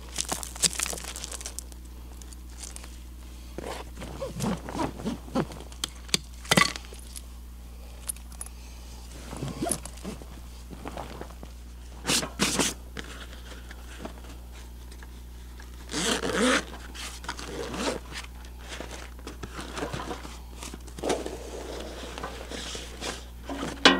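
Camping gear being handled: scattered rustles, scrapes and clicks as a swag strap is worked and a zippered soft bag is opened and rummaged through, with a few louder bursts around the middle.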